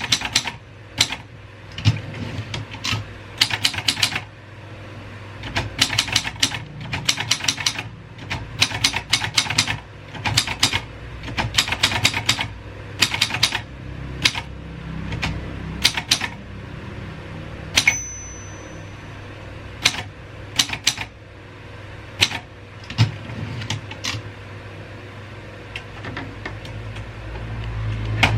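Royal 202 manual typewriter being typed on: runs of quick key strikes in bursts with short pauses between them, and one short ring about two-thirds of the way through.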